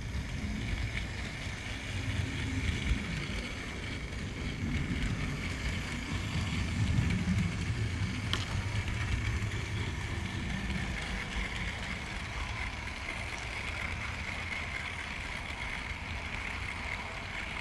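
Model railway train running along the track, heard from a camera riding on one of its wagons: a steady rumble of wheels on the rails with a steady high whine over it, and a single sharp click about eight seconds in.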